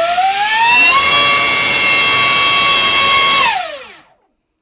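Dr Mad Thrust 2870 3000kV brushless inrunner motor spinning a Graupner 5.2x5.2 CAM prop: a loud whine that rises in pitch as the throttle opens, holds steady at full throttle for about two and a half seconds, then falls away and stops about four seconds in. The motor is pulling about 112 amps, well over what it is meant to take.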